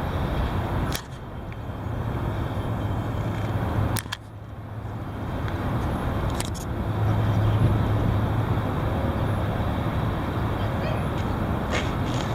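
Heavy wind buffeting the microphone: a loud, rough rumble that drops off suddenly about a second in and again about four seconds in, then builds back up.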